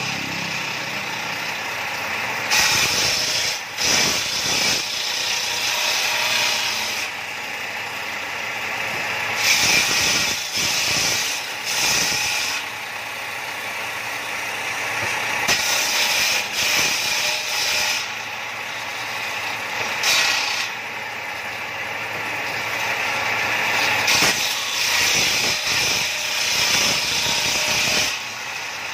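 Bench-mounted circular saw ripping wooden boards lengthwise. It runs steadily, and the sound grows louder and harsher each time a board is pushed through the blade: several cuts in a row, with lighter running in between.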